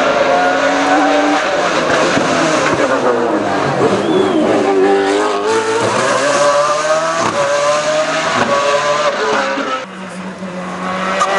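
Race car engine being driven hard on a hill-climb course: its pitch climbs and drops again and again as the driver works the throttle and shifts gears. The engine sound dips briefly near the end.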